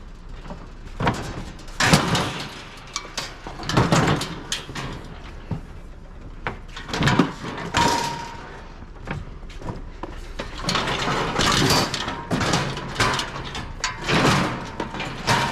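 Scrap metal being handled and loaded: a string of irregular bumps, scrapes and clatters, with a brief metallic ring about halfway through.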